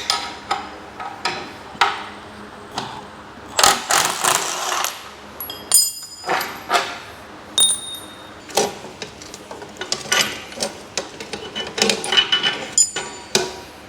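Irregular metallic clanks and clinks, about a dozen, as the bolts and steel plates of a galvanized half rack are unfastened and handled. Several strikes leave a short high ring.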